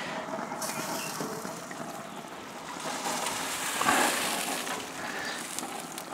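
Steady hissing noise from a lit Weber gas grill with a tray of aubergine rolls in tomato sauce cooking in it, swelling slightly about four seconds in.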